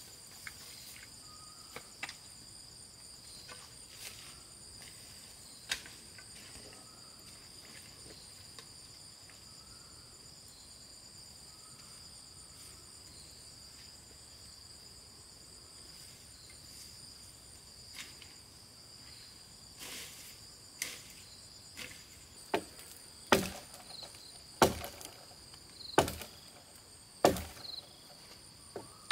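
Insects drone steadily in high, constant tones, with scattered small clicks and rustles. In the last third comes a run of chopping strikes on wood, the heaviest four just over a second apart and louder than anything else.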